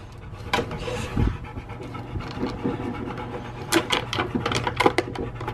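Dog panting, with several sharp clicks and knocks about four to five seconds in as a large dog scrambles up onto a vehicle's back seat.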